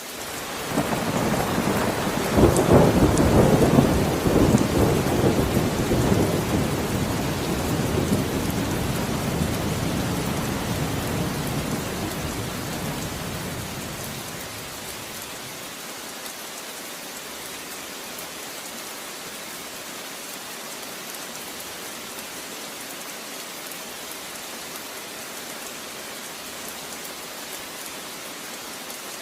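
Steady rain with a long roll of thunder: the rumble swells up about a second in, is loudest a few seconds later, then rolls away over some ten seconds, leaving only the rain.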